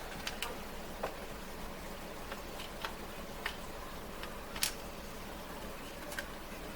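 Light clicks and taps of small parts being handled during microwave reassembly, about a dozen at irregular spacing, the loudest a little past four and a half seconds in, over a steady faint hiss.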